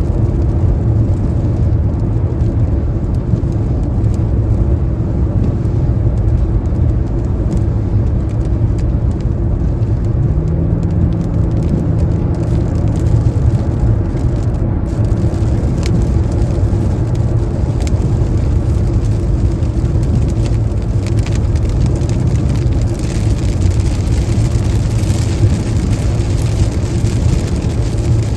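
Car driving at highway speed in the rain, a steady low rumble of road and tyre noise. A brighter hiss of rain and spray builds over the last few seconds.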